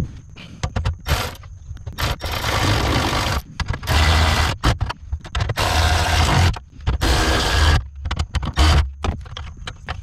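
Hand socket ratchet clicking in quick runs, about six of them with short pauses between, as the bolts holding a car-audio amplifier are turned.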